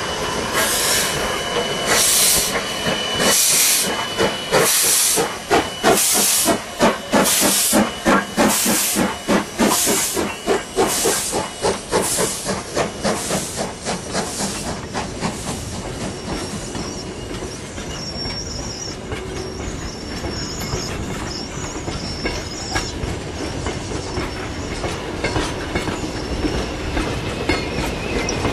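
Baldwin-built AC16 class 2-8-2 steam locomotive working past under steam. Its exhaust chuffs get quicker and louder as it goes by, then fade after about halfway while the carriages roll past with a steady rolling noise.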